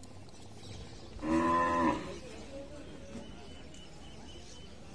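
A calf moos once, a short call of under a second about a second in.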